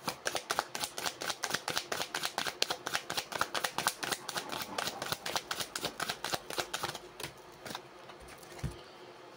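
A deck of tarot cards being shuffled by hand: a quick, even patter of card slaps, about six a second, that stops about seven seconds in.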